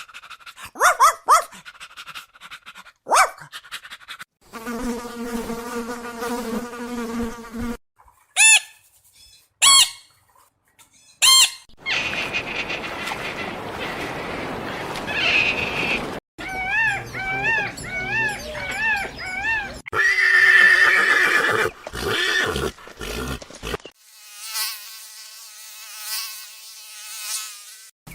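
A run of different animal calls one after another, each lasting a few seconds and cut off abruptly: short chirpy calls, a steady buzzy drone, sharp repeated high calls, a noisy rustling stretch, rapid wavering calls, and a thin buzzing near the end.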